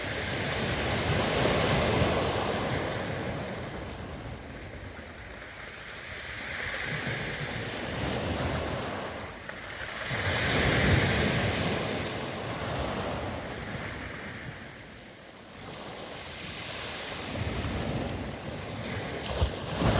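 Sea waves breaking and washing ashore in slow surges, rising and falling about three times, loudest about ten seconds in. Wind buffets the microphone.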